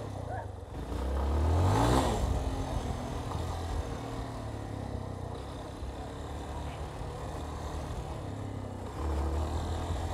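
Yamaha Ténéré 250's single-cylinder four-stroke engine accelerating, its revs rising steeply about a second in, then running steadily under way, with the revs picking up again near the end.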